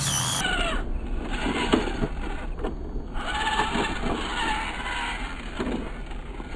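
Small electric RC rock crawler running and working its way over rock, with a few light knocks.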